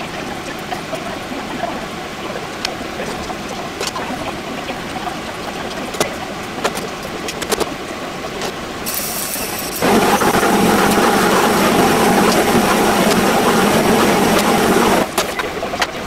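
Glazed chicken pieces sizzling and popping in an oiled frying pan on a gas burner, with a pot of water boiling beside it. About ten seconds in, a much louder steady rushing hiss starts and cuts off suddenly some five seconds later.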